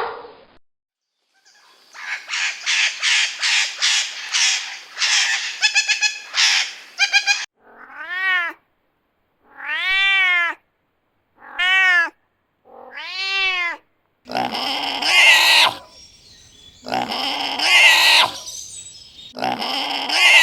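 A run of animal calls. First comes a fast series of short calls, then four separate calls that rise and fall in pitch, about a second and a half apart. Near the end come three loud, harsher calls.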